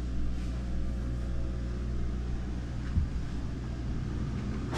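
Steady low mechanical hum, with a single dull knock about three seconds in.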